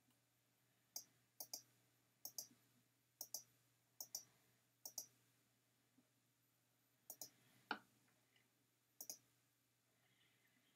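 Computer mouse button clicking about eight times at roughly one-second intervals, each click a quick pair of snaps. About three-quarters of the way through there is one louder, duller knock.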